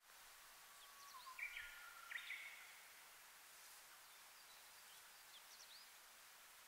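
Faint song of a Japanese bush warbler (uguisu): a long held whistle, then two short higher phrases in quick succession. A few brief high chirps come later, over a steady background hiss.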